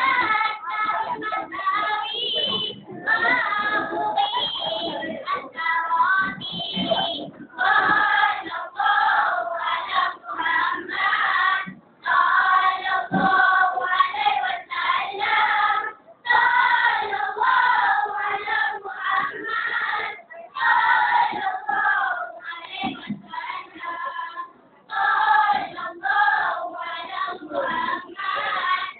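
A group of young boys singing marhaban, Malay devotional chanting in praise of the Prophet, together as a choir. The phrases are broken by a few short pauses.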